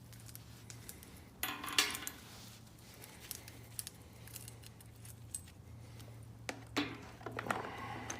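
Metal saw chain clinking and rattling as it is handled and fitted onto a chainsaw bar, with a denser rattle about a second and a half in and again near the end, and small clicks between.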